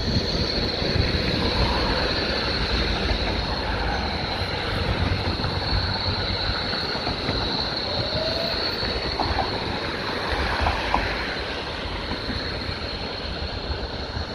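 Street traffic noise with an electric tram running past along the road, cars passing and a low wind rumble on the microphone.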